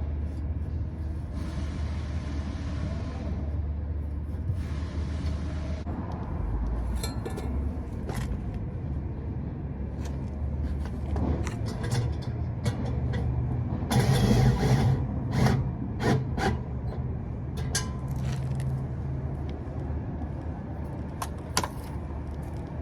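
Work sounds from fitting exhaust tips: scattered metal clinks and knocks of tools and parts over a steady low hum, with a louder rush of noise about fourteen seconds in.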